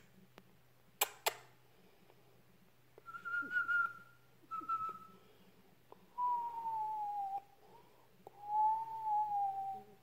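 Cockatiel whistling: two short, higher notes, then longer clear notes that glide slightly downward. Two sharp clicks about a second in.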